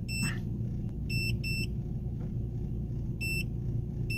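Handheld Vident iEasy310 OBD2 code reader giving short high beeps as its buttons are pressed to step through the menus, about five beeps in all, two of them close together just after a second in. Under the beeps runs a low, steady hum of the car's engine idling.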